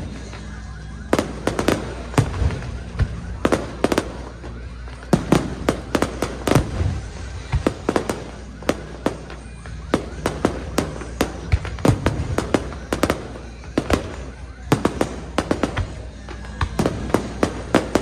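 Aerial fireworks display: a rapid, irregular barrage of bangs and pops, several a second, with clusters of bursts going off close together.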